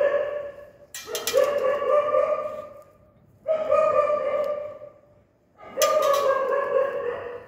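A dog crying out in repeated long howling cries, each starting sharply and held at a steady pitch for about one and a half to two seconds, coming roughly every two and a half seconds. The cries come while forceps work inside its open maggot-infested wound.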